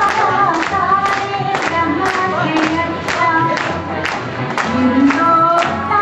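A song sung by a group of voices over musical accompaniment, with a sharp, even beat about twice a second.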